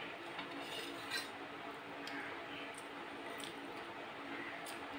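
Stainless-steel bowl clinking and scraping against a steel plate as curry is tipped out of it: a few light metal clinks, the sharpest about a second in.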